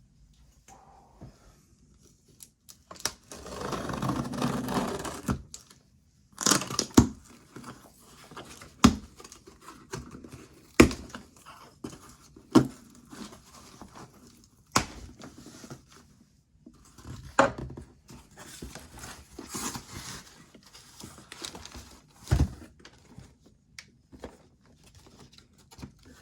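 A keyboard's box and packaging being opened and handled. There is a rustling, tearing stretch of about two seconds early on, then sharp knocks and thunks every second or two, with more crinkling rustle later.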